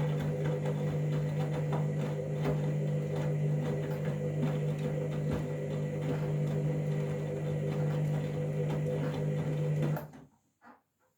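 Candy washing machine running at the start of its Whites 40 programme: a steady hum with light clicks and rattles, which cuts off suddenly about ten seconds in, followed by a few faint clicks.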